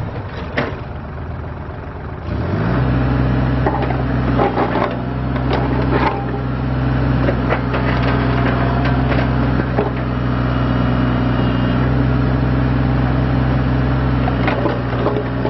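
Bobcat E32 mini excavator's diesel engine running, settling into a steady, higher note about two seconds in, with scattered knocks and clicks over it.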